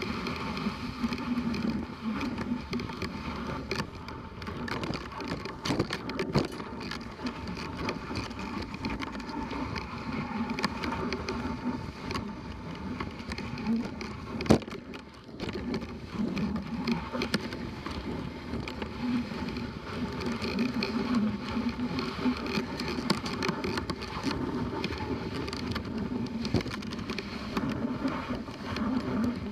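Dog sled running over a packed snow trail behind its dog team: the steady scrape and hiss of the runners, with the sled's frequent small clicks and rattles and one sharp knock about halfway through.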